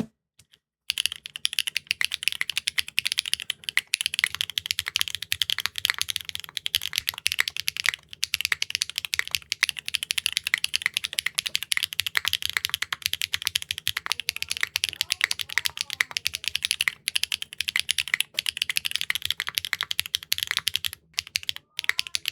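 Fast typing on a Neo65 Core Plus mechanical keyboard fitted with clacky factory-lubed linear switches: Keygeek Ding Ding, Keygeek M3 and an HMX linear, swapped in quick A/B/C runs. It is a dense stream of keystroke clacks that starts about a second in, with a few brief pauses.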